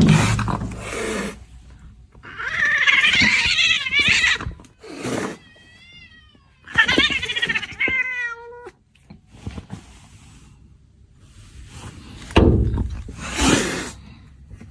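Domestic cat meowing and yowling in several drawn-out calls with wavering pitch, a few seconds apart. Loud noisy sounds come at the start and again near the end.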